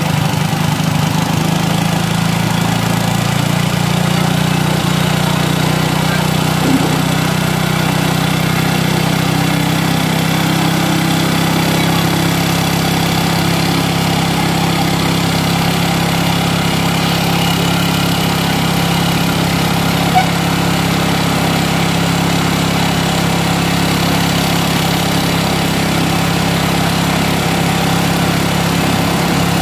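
Hero Glamour 125's air-cooled single-cylinder four-stroke engine running warm at a fast idle. Its speed climbs from about 2,500 to about 4,000 rpm as the carburettor air screw is turned to find the highest-idle point, which sets the mixture for better mileage.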